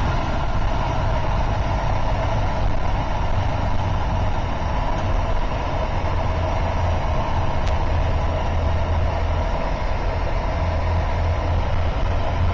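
Hummer H1 engine running steadily with an even low hum, without revving.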